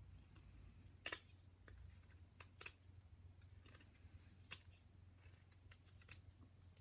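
Whittling knife paring small cuts in a wooden figure: faint, short snicks of the blade through the wood, about eight of them at uneven intervals, the sharpest about a second in.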